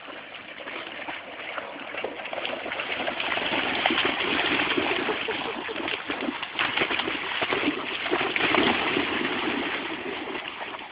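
Labrador splashing and wading through shallow water at the water's edge, a continuous run of irregular splashes that is loudest about four seconds in and again near nine seconds.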